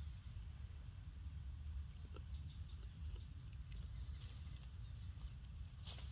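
Forest ambience: short, high-pitched rising bird chirps repeating every second or so over a low steady rumble, with a brief rustle near the end.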